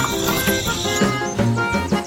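Background music with a steady beat and bass pulses.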